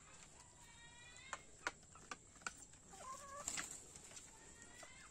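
Domestic chickens clucking and giving short calls, faint, with several sharp clicks scattered through.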